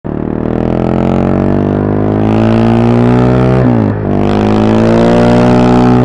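KTM 690 SMC-R's single-cylinder engine pulling under acceleration. Its pitch climbs steadily, drops sharply about two-thirds of the way through as it shifts up a gear, then climbs again.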